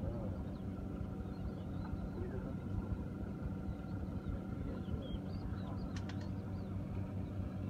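A steady low motor drone with an even hum, with faint short high chirps scattered over it.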